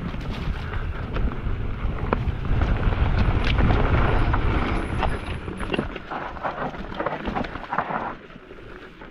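Wind buffeting an action camera's microphone as a Calibre Triple B full-suspension mountain bike rides a trail at speed, with tyres crunching over the ground and the bike clicking and rattling. The wind rumble drops away after about six seconds, leaving lighter scattered clicks.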